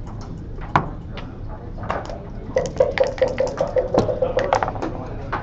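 A backgammon checker clicks down on the board, then dice rattle in a dice cup for about two seconds, a quick run of clicks over a steady low tone.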